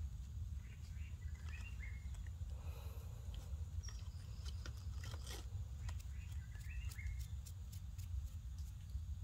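Leaves and twigs crackling in scattered short clicks as a baby monkey crawls over a bed of leaves, with a few short faint chirps, over a steady low rumble.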